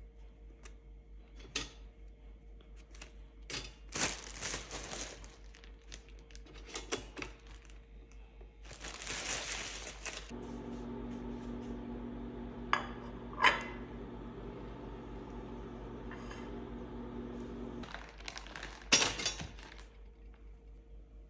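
Plastic bread bag crinkling, with handling clicks and knocks around a pop-up toaster. Then a steady hum lasts about seven seconds with two sharp clicks in it, and a loud clack near the end as the toaster pops the toast up.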